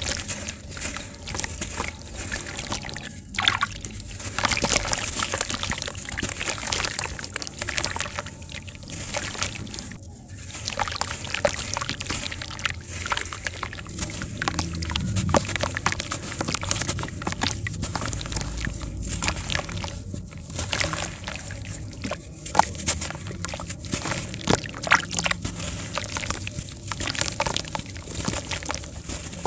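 Hands crushing mini mugs moulded from pure sand in a tub of water: continual sloshing and dribbling of water, with gritty crumbling and many small crackles as the wet sand breaks apart and falls back in.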